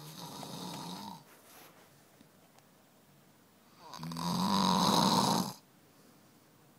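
Snoring in its sleep: two snores, a shorter one at the start and a louder, longer one about four seconds in.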